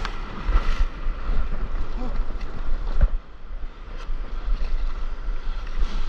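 Wind buffeting the microphone and surf whitewater splashing over a stand-up paddleboard as it crosses breaking waves, with a dull knock about three seconds in.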